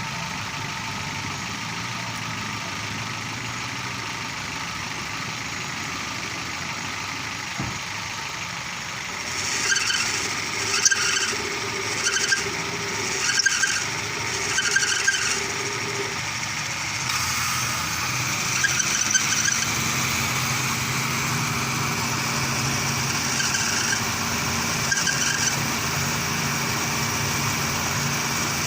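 Car engine idling, and from about ten seconds in the power-steering belt squeals in short repeated bursts, about one a second, then more scattered, as the steering is held at full lock and the pump loads the belt.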